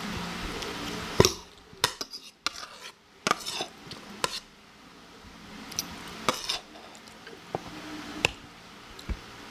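Cutlery clinking and scraping against a plate while food is scooped up, a scattering of sharp clinks with the loudest about a second in.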